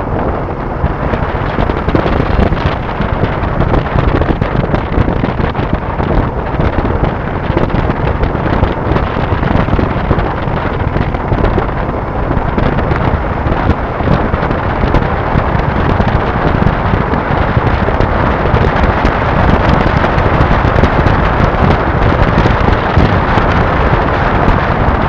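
Wind buffeting the microphone of an action camera mounted on a moving Suzuki Gixxer SF motorcycle, a steady rumbling rush mixed with the bike's running and road noise, at about 30 to 50 km/h. It grows a little louder toward the end as the speed rises.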